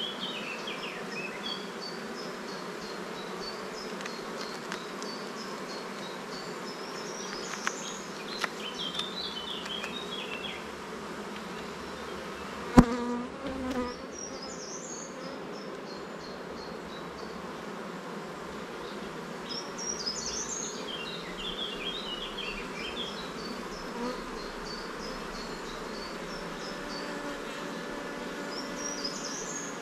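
Honeybees buzzing in a steady hum around an open hive while its frames are worked. There is one sharp knock, the loudest sound, about halfway in, with a couple of lighter clicks before it.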